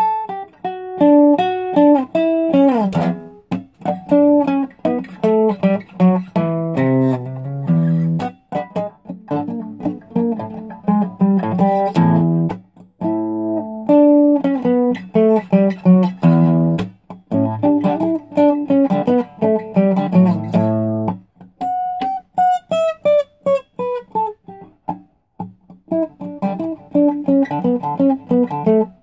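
Solo acoustic guitar playing an instrumental jam: picked single-note melody lines over ringing low bass notes, with a few short pauses between phrases.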